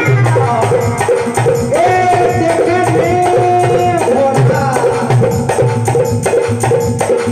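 Instrumental interlude of a Rajasthani nirguni bhajan with no singing: long held, gliding melody notes over steady dholak drumming and a jingling rattle.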